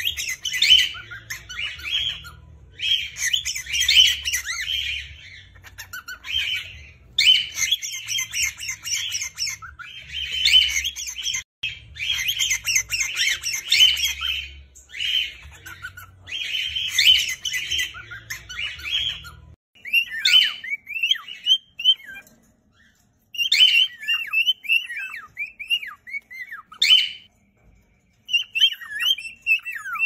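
Several cockatiels calling and chirping at once, a dense run of repeated high-pitched calls; about two-thirds of the way through the calls thin out into scattered, choppier chirps.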